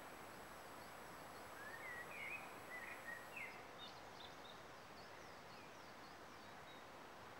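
Faint woodland ambience: a steady soft hiss with a songbird's short chirps from about a second and a half in, and fainter, higher bird calls further off after that.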